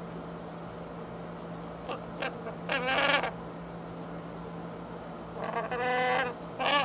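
Wheezing breaths with a pitched, wavering whistle: two longer wheezes about three seconds apart, the second followed closely by a short one.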